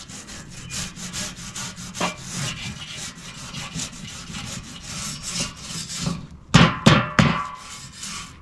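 Nylon grill brush scrubbing back and forth over hot cast iron grill grates in quick rasping strokes, cleaning off burnt-on food. Near the end come three loud knocks.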